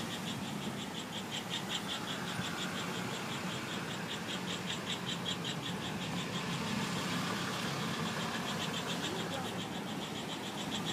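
Car cabin noise while driving: a low engine and road rumble. Over it runs a steady, fast, high-pitched pulsing, several pulses a second.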